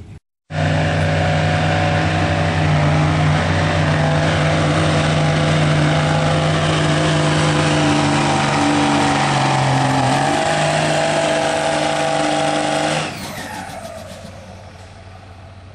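Pickup truck engine held at high, steady revs under load while pulling a weight sled. Near the end the throttle is let off, and the revs fall away and the sound drops.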